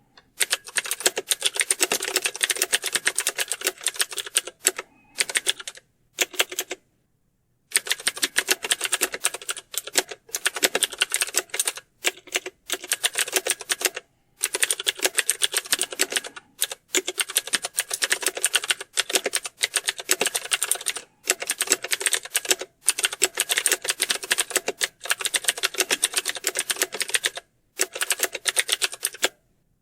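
Rapid, continuous typing on a computer keyboard: dense keystroke clicks with no let-up, broken by a few brief gaps of dead silence, the longest about a second, near the window's quarter mark.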